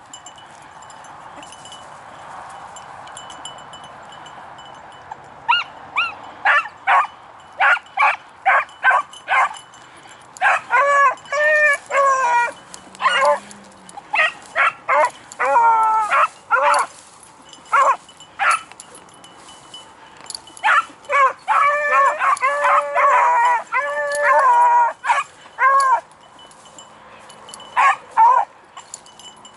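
Beagle hounds barking and yelping on a rabbit track, several voices overlapping. The calls start about five seconds in and come in quick runs, thickest near the middle and again toward the end.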